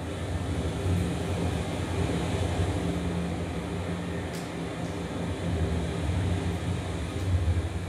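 A steady low rumbling drone with two low hums that swell and fade, under an even hiss. It is ambient sound from the installation's sound playback.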